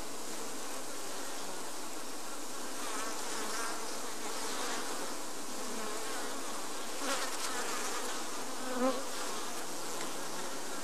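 Honey bees buzzing steadily over the open hive's frames, a package colony just shaken into the hive, with the hum swelling slightly a couple of times.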